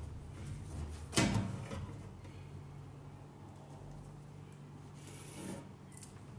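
Marking out on a galvanized sheet-metal toolbox lid: a knock about a second in as a steel rule is set down on the metal, then a marker pen scratching across the metal near the end, over a low steady hum.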